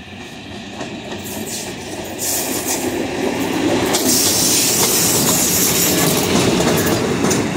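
PKP Intercity EP07 electric locomotive running light past close by, its wheels clattering over rail joints and points. It gets louder over the first few seconds as it comes near, then holds steady as it passes.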